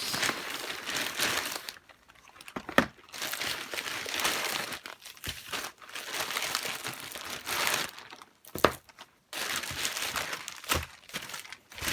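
Packaging crinkling and rustling in bouts as items are pulled out of an opened mail package, with a few sharp snaps and short pauses between handlings.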